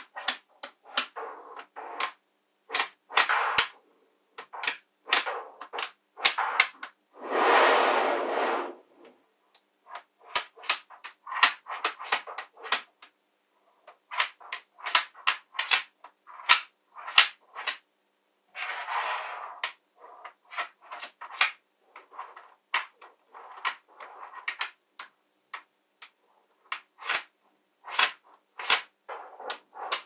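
Small neodymium magnet balls clicking and snapping together as strips of them are pressed onto a flat sheet of balls, in quick, irregular clicks. Twice the clicking gives way to a longer rattle of many balls.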